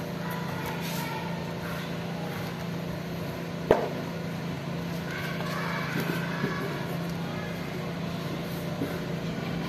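A steady low motor hum, with one sharp knock just under four seconds in.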